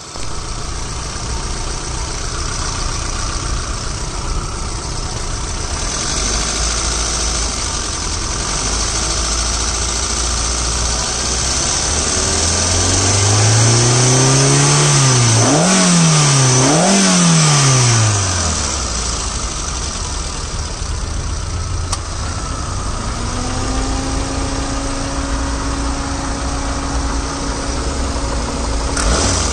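Hyundai Santro GLS four-cylinder petrol engine idling steadily, revved up and let fall back three times in quick succession about halfway through, then returning to a steady idle. A steady whine joins in over the last few seconds.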